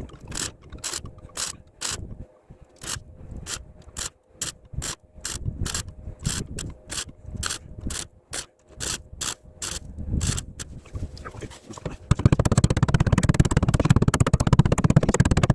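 Welder laying a quick series of short spot welds on a van's sill repair panels, sharp zaps about two a second. Near the end it runs a longer continuous crackling weld of about three seconds, the loudest part.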